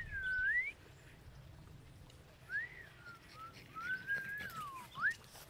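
A dog whining: thin, high whines that slide up and down in pitch, one long whine at the start and a run of shorter ones from about halfway through.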